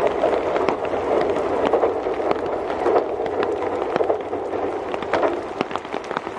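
JR Central 383 series electric express train running away along the track, a steady rumble of wheels on rail that slowly fades. Irregular sharp ticks sound throughout.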